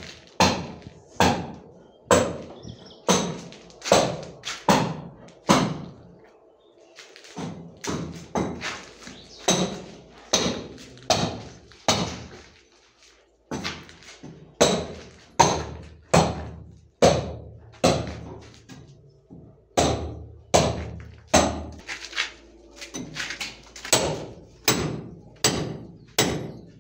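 Hammer striking a chisel into a concrete-block wall at about two blows a second, cutting channels for electrical wiring. The blows pause briefly twice.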